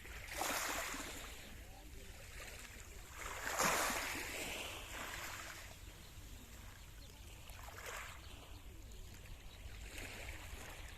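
Small waves of a calm Mediterranean sea washing in at the shore, a soft swell every few seconds, the biggest about three and a half seconds in, over a steady low rumble.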